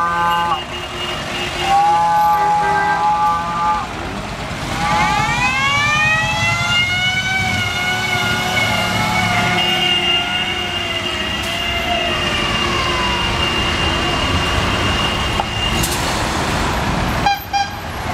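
Two long car horn blasts, each a steady chord of several notes, then a siren winding up in pitch, wavering while held, and winding slowly back down, over running engines and traffic.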